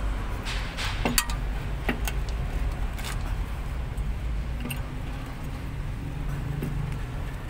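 Steel combination wrench clicking and clinking against the release bolt nut on the back of a truck's air spring brake chamber as it is turned in short strokes. The clinks are sharpest about a second in, over a steady low hum.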